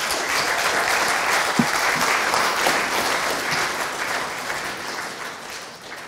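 Audience applauding in a lecture hall at the end of a talk: a dense, steady patter of many hands clapping that fades away over the last couple of seconds.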